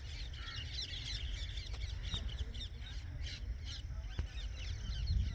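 Several birds chirping and calling at once, many short quick notes overlapping, with a low rumble underneath.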